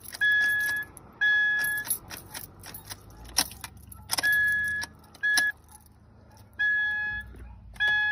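A car's electronic warning chime beeping, each beep about half a second long at roughly one a second, with irregular pauses, mixed with sharp clicks and a rattle like keys jangling.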